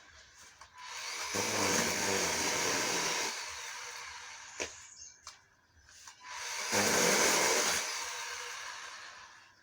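24-volt electric chainsaw with a 10-inch bar run in two bursts, each revving up for a second or two and then winding down. There is a sharp click between the bursts.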